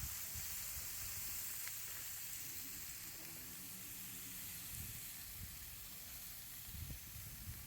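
Chicken souvlaki skewers sizzling steadily on a charcoal grill, close to done.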